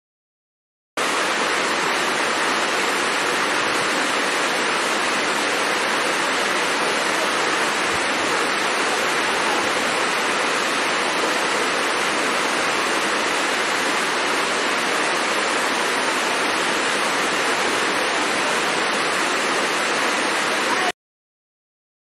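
Steady, even rush of a waterfall, starting abruptly about a second in and cutting off suddenly near the end.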